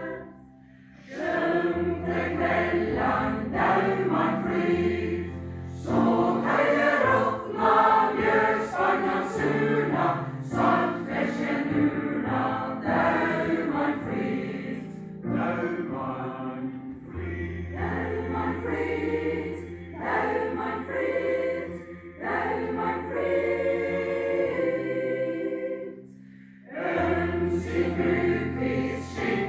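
Mixed choir of men and women singing a slow song in Norwegian dialect, over low sustained bass notes. The singing breaks briefly between phrases about a second in and again near the end.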